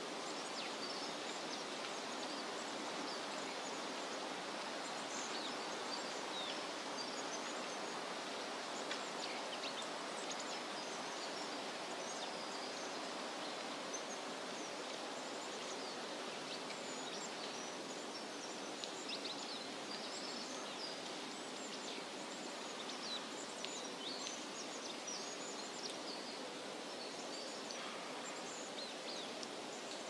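Shallow stream running over rocks, a steady rush of water, with many small birds chirping in short high calls throughout.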